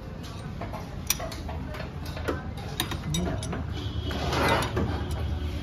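Hand socket ratchet wrench clicking in short runs as a bolt on a car's gearbox is turned, with metal tool clinks. A louder, faster run of ratcheting comes about four seconds in, over a steady low hum.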